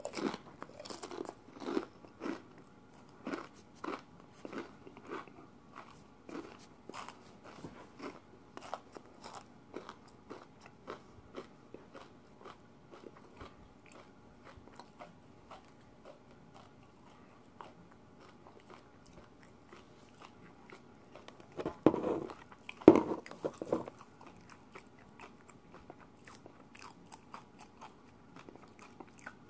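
A person chewing the Paqui One Chip, a very spicy tortilla chip, with crisp crunches about once or twice a second at first that grow sparser as it is eaten. About twenty-two seconds in comes a louder cluster of knocks.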